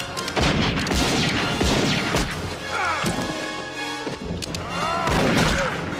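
Film-soundtrack gunfight: revolver shots in quick succession over the first two seconds or so, over dramatic music. Two sliding cries around three and five seconds in, with the music carrying on under them.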